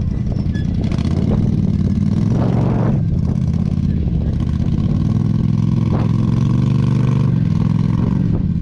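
Off-road vehicle engine idling steadily close to the microphone, with a few brief rattles on top.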